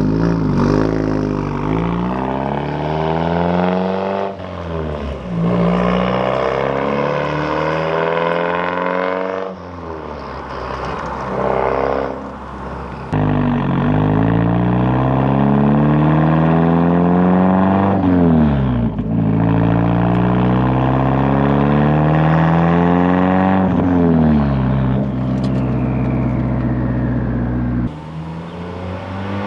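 Turbocharged 2.3 L four-cylinder Mazdaspeed3 with a full CPE exhaust (catless downpipe and Triton cat-back) pulling hard through the gears. The engine note climbs for several seconds, then drops back at each shift, about five times.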